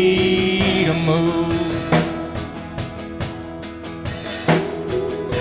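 Live worship band playing an instrumental passage between sung lines: a drum kit beats out kick and snare hits under strummed acoustic guitar and sustained chords, with a held note about the first second.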